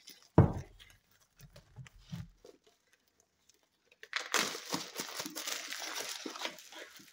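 A thump and a few soft knocks as a book is handled. Then, from about four seconds in, plastic shrink wrap crinkles and crackles as it is torn off the book.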